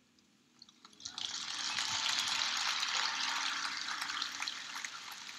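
Audience applauding, starting about a second in, building quickly and then slowly fading.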